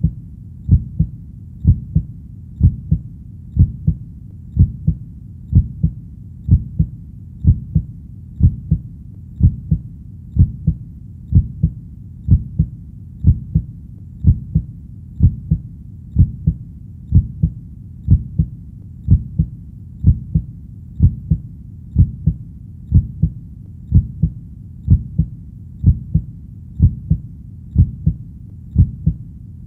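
Human heartbeat: a steady, slow lub-dub double thump about once a second, deep and low, over a faint low rumble.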